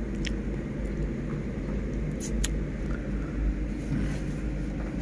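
An old truck's engine running steadily, heard from inside the cab as a low, even rumble, with a few light clicks over it.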